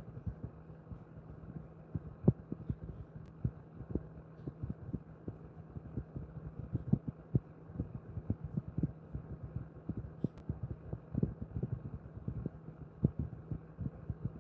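Soft, irregular low thuds of hands patting and rubbing a dog's body during a massage, several a second, over a steady low hum.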